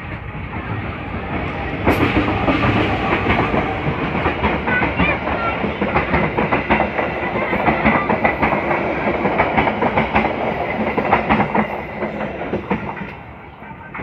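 Passenger train passing close by, its coach wheels clattering over the rail joints with many sharp clacks. The sound builds over the first two seconds, stays loud, and fades over the last two seconds as the last coaches pull away.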